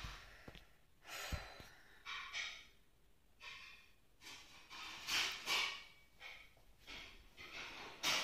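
A girl breathing audibly close to the microphone: a slow series of soft breaths and sighs about a second or so apart, ending in a yawn.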